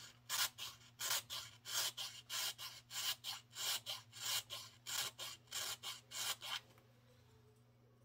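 Needle file rasping back and forth in the lower screw hole of a G10 pistol grip panel, about three strokes a second, stopping about two-thirds of the way through. The file is taking material off the top of the hole so the grip can sit flush on the frame.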